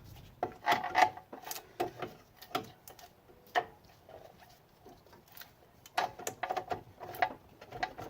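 Irregular metal clicks and clinks of hand tools and car parts being handled, in a quick cluster near the start and another toward the end.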